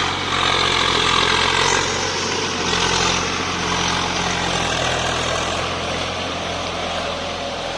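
Tractor engine running steadily while plowing the field, gradually getting fainter over the last few seconds.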